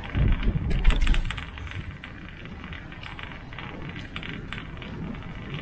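Bicycle being ridden, its parts rattling with many quick light clicks and jingles over a low rumble that is loudest in the first second.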